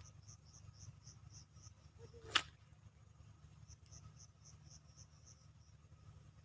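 Insects chirping in a regular pulsed rhythm over a steady low rumble, with one sharp click about two and a half seconds in.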